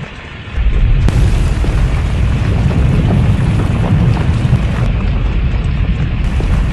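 Loud, deep rumbling with a dense crashing noise over it, starting about half a second in, typical of an earthquake's ground rumble and shaking.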